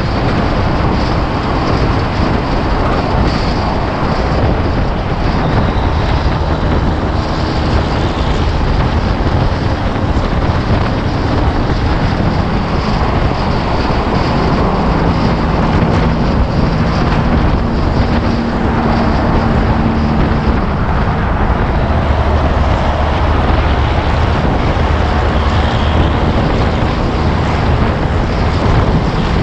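Peterbilt 362 cabover semi truck under way on the road: a steady drone of the diesel engine mixed with wind and road noise.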